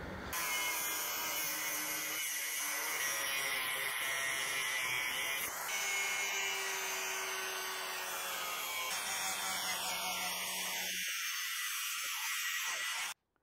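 Angle grinder with a thin cut-off disc cutting through 5.5 mm steel angle bar, a steady grinding noise that stops abruptly near the end.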